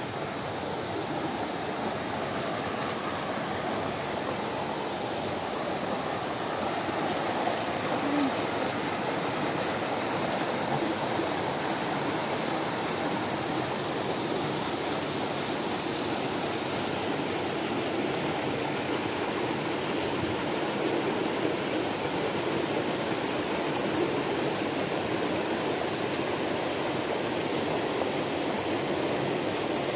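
Rocky mountain stream rushing and splashing over boulders: a steady sound of running water that gets slightly louder about a second in.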